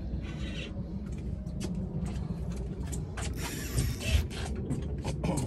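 Spinning reel's drag ratcheting in uneven clicking bursts, with a longer run a little past halfway, as a hooked green bonito (false albacore) pulls line against a light rod.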